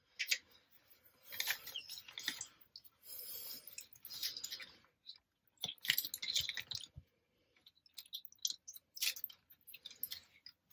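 Handheld lemon squeezer crushing a lemon half: faint, irregular squishing and crackling with small clicks from the press as it is squeezed and shifted.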